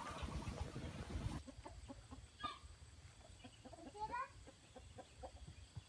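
A rustling noise that cuts off suddenly about a second and a half in, then chickens clucking softly, with a few short higher calls.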